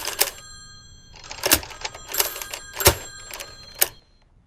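An irregular series of sharp metallic clicks and knocks, about eight in all, each leaving a brief high ringing tone.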